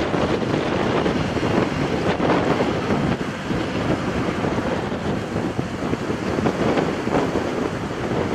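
Gusty wind buffeting the microphone, with the jet engines of a taxiing Airbus A319 running underneath.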